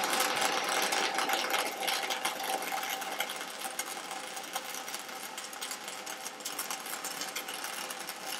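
Gas-shielded flux-cored arc welding with Eagle 530 FGS build-up wire: a steady, dense crackle and sputter from the arc as a bead is laid on steel, with a faint steady tone under it, growing somewhat quieter after the first few seconds.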